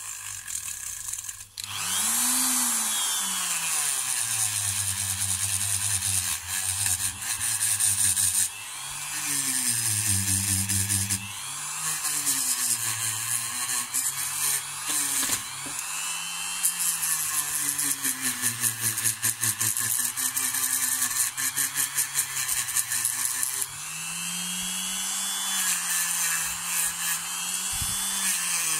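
Dremel rotary tool running with a small wheel pressed against a paint-stripped diecast metal car body, polishing it smooth. A motor whine dips and rises in pitch as the load changes, over a steady hiss of the wheel on the metal. It starts about a second and a half in.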